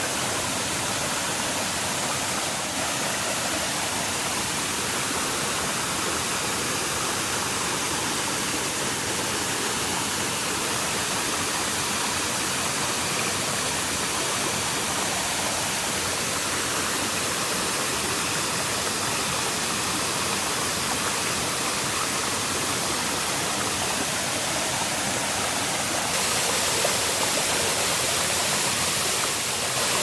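Waterfall in a forest, a steady dense rush of falling water. About 26 seconds in it becomes a little louder and brighter.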